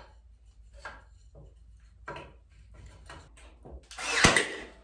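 Thin wood strips handled with a few light taps, then near the end a cordless brad nailer fires once: a short whir building up to a sharp crack as it drives a brad into the wood.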